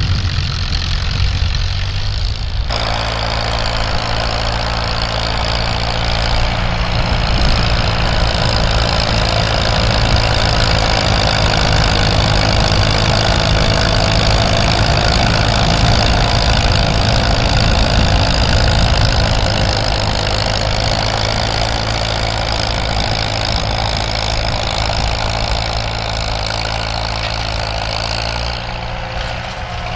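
Vintage farm tractor engine running steadily at a low, even speed. A louder, noisier layer of mechanical sound comes in abruptly about three seconds in and fades just before the end.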